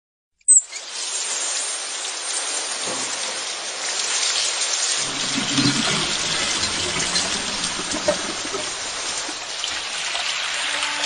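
Shower head spraying water steadily after a sharp click about half a second in, as the shower valve is turned on.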